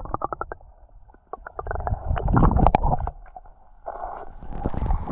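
Muffled rumbling and crackling of waterfall water splashing onto the microphone, with a quick run of clicks at the start and a heavier low rumble in the middle.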